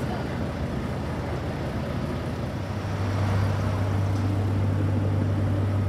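Heavy diesel trucks running in slow, jammed traffic. About three seconds in, a steady low engine hum comes in and gets louder as a truck draws close.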